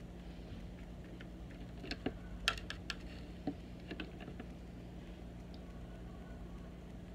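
A makeup brush clicking and tapping against a plastic eyeshadow palette as it picks up powder: a cluster of light, sharp taps about two to four seconds in, over a steady low hum.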